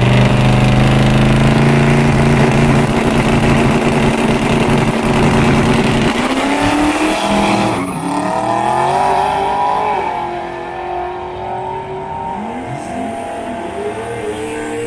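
1500 hp twin-turbo Buick Skylark drag car's engine running at a steady pitch on the start line. About six seconds in it launches: the pitch climbs and drops back through several gear changes, and the sound fades as the car runs away down the strip.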